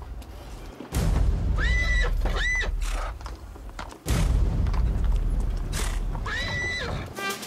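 Two heavy explosions, about three seconds apart, each followed by a long low rumble, like artillery fire in a battle soundtrack. Short high tones that rise and fall sound between them, and a trumpet begins playing near the end.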